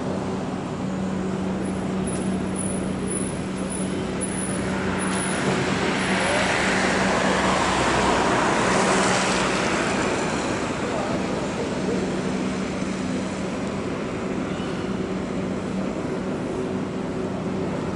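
Steady mechanical hum of the ship lift's drive machinery as the trough is lowered, with a broad rushing noise that swells to a peak about halfway through and then fades.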